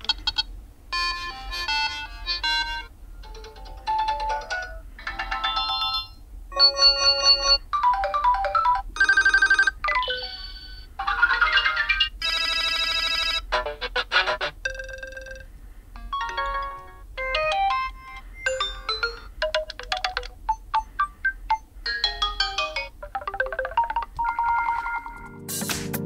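HTC U12+ built-in incoming-call ringtones previewed one after another: about twenty short snippets of electronic melodic tones and chimes, each a different tune, each cut off after roughly half a second to a second as the next is selected.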